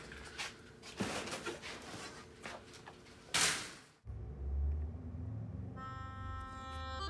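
A wire-mesh storage cage door being handled, with clicks and knocks and a louder noisy rattle about three and a half seconds in. At about four seconds the room sound cuts off and music starts: a low bass, then held chords about two seconds later.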